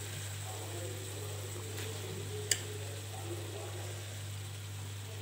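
Rice being spooned into an aluminium pot over chicken: a quiet steady low hum, and one sharp clink of the spoon on the pot about two and a half seconds in.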